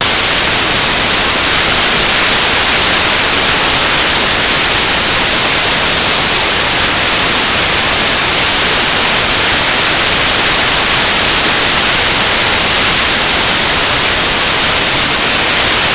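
Very loud, harsh static: an even blast of white noise, heaviest in the hiss range, that switches on abruptly and cuts off just as suddenly. It is painfully loud to the ear.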